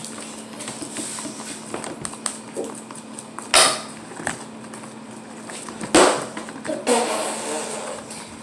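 Sticky homemade slime being squeezed, pulled and kneaded by hand in a plastic tub, giving small wet clicks and crackles, with two louder sharp squelches or knocks about three and a half and six seconds in.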